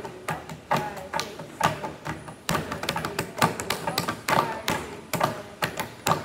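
Hands slapping and tapping on a slatted wooden tabletop in a hand-slapping game, a quick run of knocks, a few each second.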